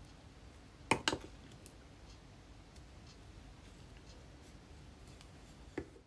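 Wooden spoon stirring crushed powder makeup in a glass dish: a faint scratchy scraping, with two sharp knocks of the spoon against the glass about a second in and another near the end.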